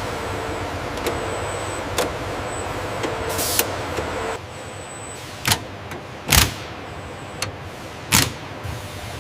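Assembly-line machinery hum with a steady tone, broken by a string of sharp mechanical clanks and a short hiss of air. The hum drops away about four seconds in, and the clanks continue after it.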